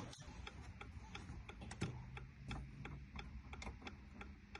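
Faint, steady ticking, about three ticks a second, typical of the 2018 Dodge Durango's hazard-light flasher clicking.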